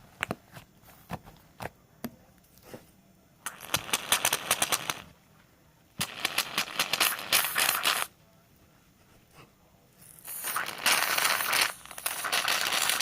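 Slime being squeezed and worked by hand, giving off rapid crackling, popping clicks in three bursts of one and a half to three seconds each, with scattered single pops between them.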